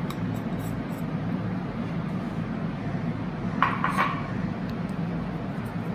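A steady low hum, with a couple of light clinks of dishware a little after halfway through.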